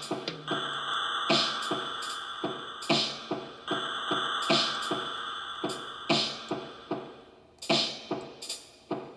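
Electronic music: a drum-machine beat of sharp, ringing hits, two or three a second, over a held synth tone that drops out about six seconds in, leaving the beat alone.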